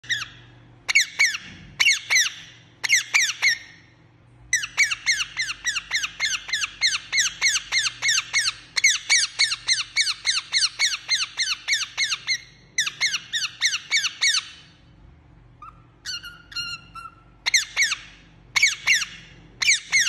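Indian ringneck parakeet chirping: quick runs of short, high, falling notes, about four a second, broken by brief pauses. About sixteen seconds in it gives a longer, lower, steadier call.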